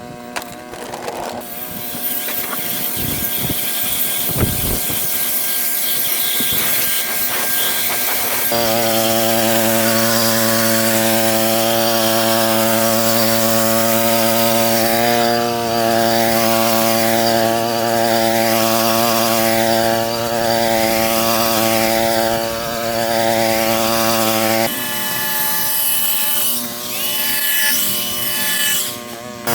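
Westermann petrol-engined moss brush running steadily under load, its rotating wire brush scraping moss off the car park surface. The engine note firms up and steadies about eight seconds in, with abrupt breaks near the end.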